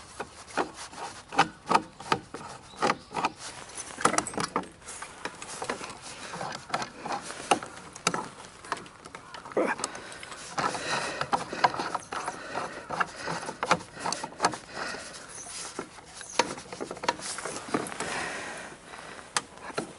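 Irregular clicks, knocks and rattles of a MotorGuide electric trolling motor being handled and raised onto its bow mount, its metal and plastic parts knocking against the mount and the boat.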